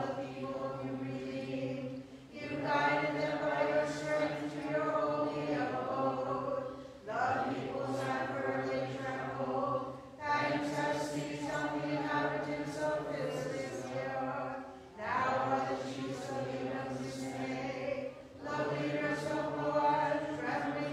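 Unaccompanied Byzantine liturgical chant, sung in phrases of a few seconds each with short breaks between them.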